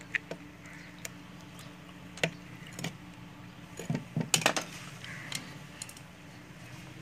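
Light metallic clicks and clinks of a screwdriver against the metal parts of a sewing machine during work on the feed-dog adjustment screw. The clicks are scattered, with a quick cluster of louder clinks about four seconds in, over a steady low hum.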